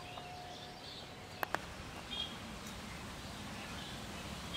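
Two quick crisp snaps, about a second and a half in, of taro stolons being cut into pieces against a boti blade, over faint bird chirps.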